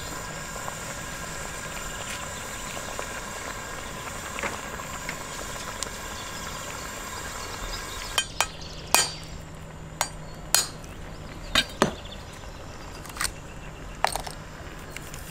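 Egg frying in a sauce in a steel pan with a steady sizzle. About eight seconds in, a run of sharp, irregular clicks and cracks as the thick, glass-hard shell of an ostrich egg is chipped open.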